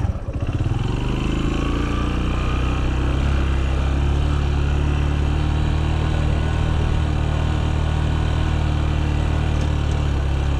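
Farm motorbike engine running. Its pitch rises over the first second or two, then holds steady.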